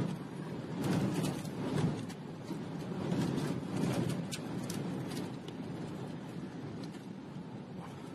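Inside a car driving through a storm: a low rumble of tyres and wind that swells and fades in gusts, with scattered sharp ticks of rain striking the car.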